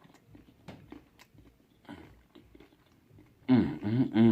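Close-miked chewing of a mouthful of pizza, with soft wet smacks and clicks. Near the end comes a loud wordless hum from the eater.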